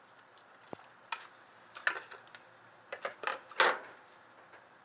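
A few short, quiet clicks and clinks of metal tongs, a plate and a glass casserole dish being handled in the kitchen, with the loudest clink about three and a half seconds in.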